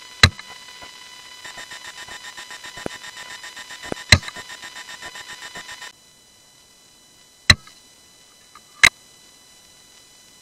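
Four rifle shots, each a single sharp crack: one just after the start, one about four seconds in, and two more about a second and a half apart near the end. Under the first six seconds runs a high steady electronic whine with a fast pulsing, which cuts off suddenly.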